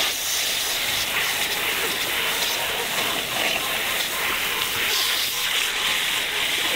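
Garden hose pistol nozzle spraying a steady jet of water into a long feeding trough, rinsing it out: a continuous, even hiss.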